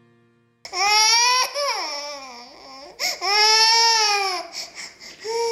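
A toddler crying hard: loud, long wails that rise and fall, a wavering cry that drops in pitch between them, then short broken sobs and a new wail starting near the end. Faint tones from a song die away just before the crying begins.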